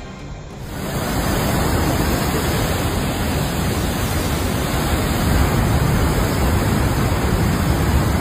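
Muddy floodwater torrent rushing down a mountain river channel: a loud, steady roar of churning water that starts about a second in.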